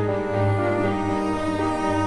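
Slow background music played on bowed strings, cello and low strings holding long notes.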